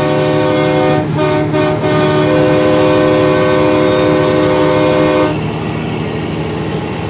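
Train horn mounted on a truck sounding a loud multi-note chord, with a few quick breaks about a second in, then held until it cuts off after about five seconds. The truck's engine drones steadily underneath.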